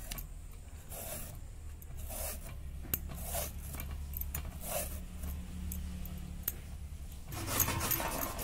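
Hand peeler scraping the skin off a bottle gourd in repeated short strokes, about one or two a second. Near the end it gives way to a denser rasping as the gourd is rubbed on a hand grater.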